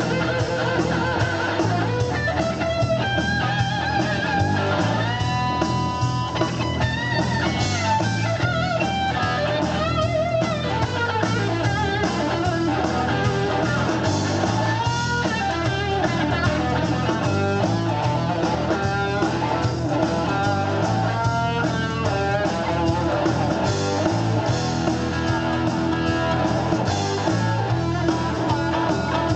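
Blues-rock band playing an instrumental break with no vocals: electric guitar lead lines bending and sliding over a steady bass and drum groove.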